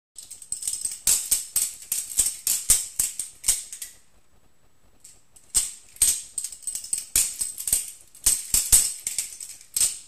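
Balisong (butterfly knife) being flipped: rapid metallic clicks and rattles as the handles swing around the blade and knock together. It comes in two runs of about four seconds each, with a pause of about a second and a half between them.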